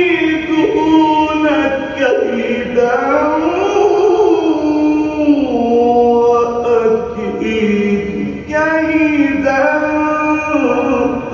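A man reciting the Quran in the melodic mujawwad style: one voice holding long, ornamented notes that glide up and down, with hardly a break.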